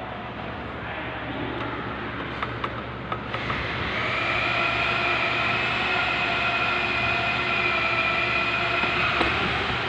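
Steady hum of running machinery, joined about four seconds in by a steady whine of several tones that holds its pitch.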